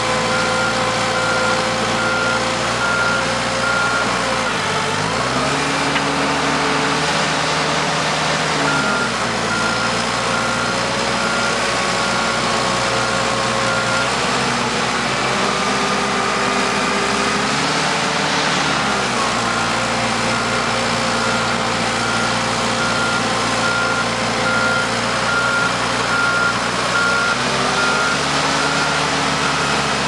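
Komatsu D39PX crawler dozer's diesel engine working under changing load, its note dropping and rising again every few seconds as the machine shifts between forward and reverse. The back-up alarm beeps steadily in stretches while it reverses.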